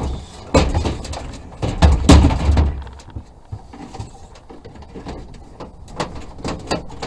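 Knocks, thumps and scraping as a diesel heater is handled and set down into a truck tool box. The heaviest thumps come in the first three seconds, with a few lighter knocks near the end.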